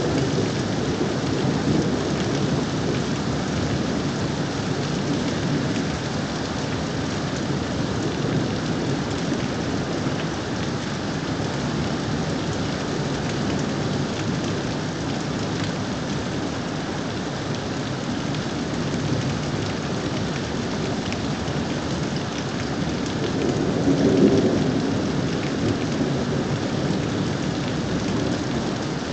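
Thunderstorm: steady rain with a continuous low rumble of thunder, which swells louder about 24 seconds in.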